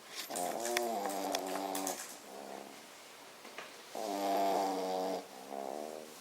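French bulldog snoring: two rounds of pitched, buzzing snores with each breath, the first just after the start and the second about four seconds in.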